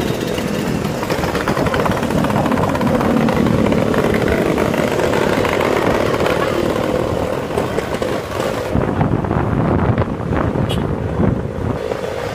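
Vintage Vespa-style scooters running at road speed in a group, their engine note mixed with road and wind noise heard from one of the moving scooters.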